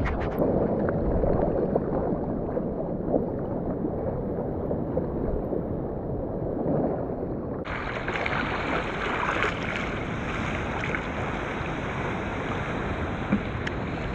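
Ocean water sloshing and lapping around a surfer sitting on a longboard, heard through a helmet-mounted GoPro, with wind on the microphone. The sound is muffled at first and turns suddenly brighter and hissier about halfway through.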